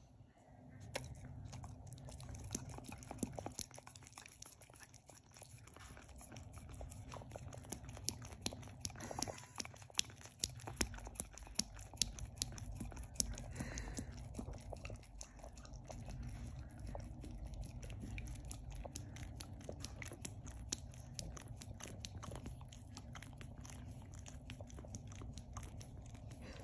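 A beagle licking whipped cream and smacking its lips: a fast, uneven run of small wet clicks, loudest about halfway through.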